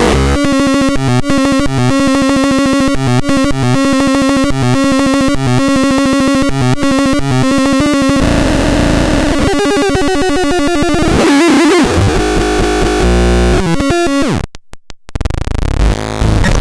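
Electronic synthesizer tones: a steady pitched note chopped into a very fast pulse, with a low note repeating under it, for about eight seconds; then it turns noisier with sweeping pitches, cuts out briefly near the end, and returns as a buzzy drone.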